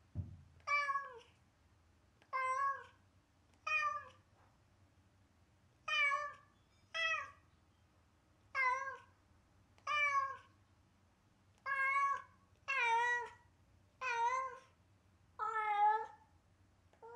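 Domestic cat left alone, meowing over and over, about a dozen plaintive meows roughly one every second and a half. It is the sad cry it gives when nobody is home, which the owners fear is a sign of separation anxiety.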